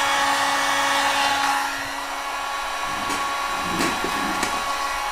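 Hot-air heat gun blowing steadily with a hum and whine while heating a car headlight housing. It drops in level about two seconds in. A few faint clicks from handling the headlight's plastic parts follow.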